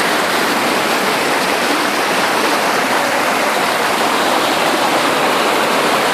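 Waterfall: fast-flowing water pouring down in a steady, even rush.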